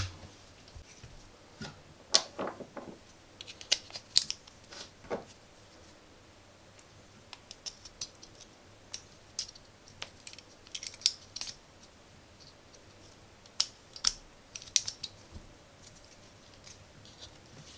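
Irregular light clicks and scrapes of a small circuit board, a plastic battery holder and AA batteries being handled as the batteries are fitted, in small clusters.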